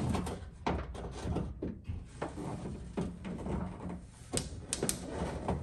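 Irregular knocks, clicks and scraping of a rear wing being pushed and worked against a car's trunk lid, its mounting studs catching on holes that are too small for them.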